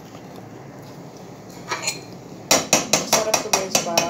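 A metal utensil clinking rapidly against cookware: about ten sharp strikes in quick succession, each leaving a short ringing tone, starting about two and a half seconds in.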